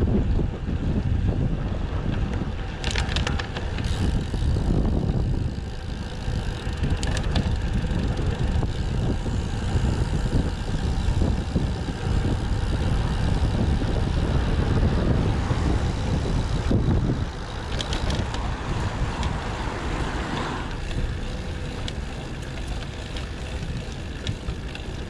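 Wind buffeting a GoPro's microphone while riding a road bike at speed: a heavy, uneven rumble throughout, with a few short clicks.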